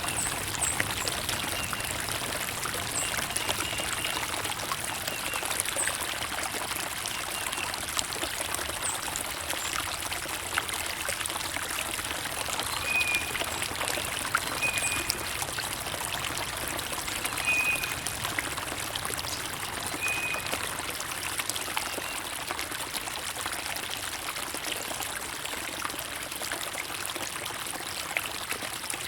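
Steady trickling, splashing water of a small stream, with a bird giving short high calls now and then, four of them close together around the middle.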